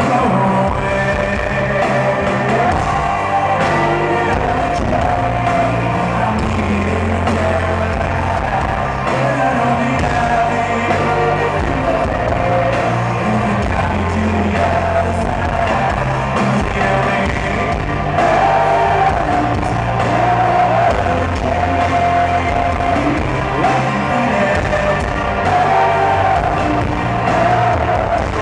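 Rock band playing live, electric guitars, bass and drums, with a male lead singer.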